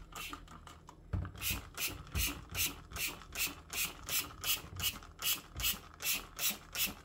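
Trigger spray bottle of household degreaser being pumped over and over, a short hiss of foamy spray two or three times a second, with a brief pause about a second in. The degreaser is being sprayed onto a disassembled remote control's parts to lift battery sulfate and grime.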